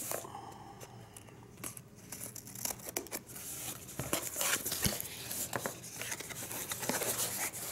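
The small paperboard retail box of an Echo Dot being slit along its tear strip with scissors and pulled open by hand. Scraping and tearing strokes mix with scattered clicks and taps, and they get busier in the second half.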